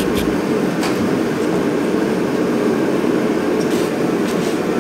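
Steady low rumble of running background machinery, with a few light clicks and knocks.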